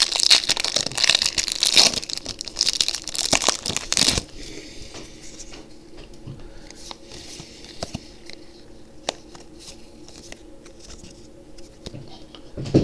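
Foil booster pack wrapper being torn open and crinkled, loud for about four seconds, then quieter rustling and faint ticks as the cards inside are handled.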